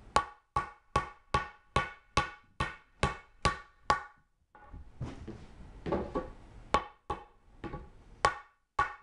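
Hammer blows driving a metal pipe nipple into a tight drilled hole in a 2x4. First comes a steady run of about ten blows, a little over two a second, each with a brief ring. After a short pause come more uneven, mostly lighter knocks, with a few sharp blows near the end.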